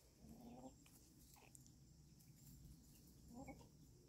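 Chickens clucking faintly: two short low calls, one just after the start and one near the end, over near-silent background.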